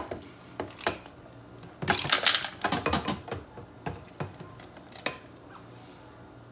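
Ice cubes tipped from a glass bowl into a blender jar, clattering and clinking against the jar and each other. A few single knocks come first, then a dense burst of clatter about two seconds in, and a couple of last knocks after it.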